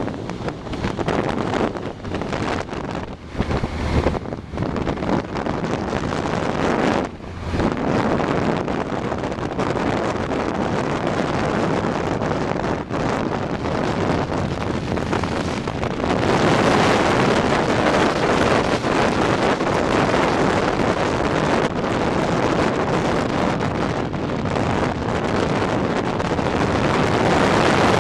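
Motorcycle riding at speed, wind rushing over the microphone with engine and road noise beneath. Gusty with brief dips in the first several seconds, then louder and steadier from about halfway through.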